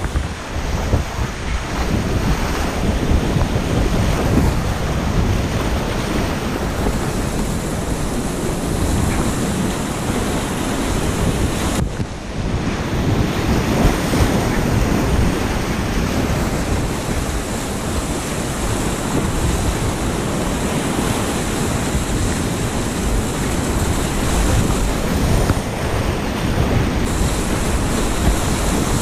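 Whitewater rapids rushing and splashing around a kayak, close to the microphone, in a steady, loud roar with one brief dip near the middle.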